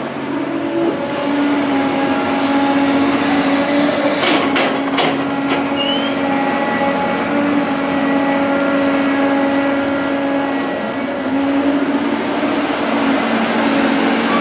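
Diesel engine of heavy earthmoving machinery, an excavator or dump truck, running steadily with an even hum, with a few knocks about four to five seconds in.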